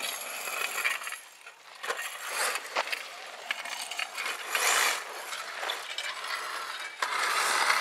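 HoBao Hyper 7 1/8-scale brushless electric buggy driving over a dirt BMX track. Its tyres make a rough hissing noise on loose grit, with scattered clicks and rattles, coming in uneven surges that are loudest about halfway through and again near the end.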